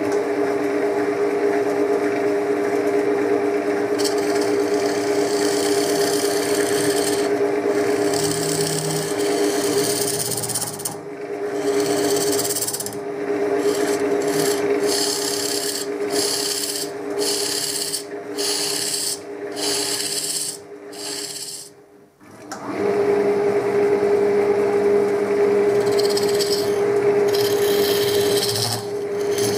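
Wood lathe running with a steady hum while a hand-held turning tool scrapes and cuts into the face of a spinning wooden blank, a rasping hiss. In the middle the cutting comes in short strokes about once a second. It almost stops about two-thirds of the way through, then runs on steadily.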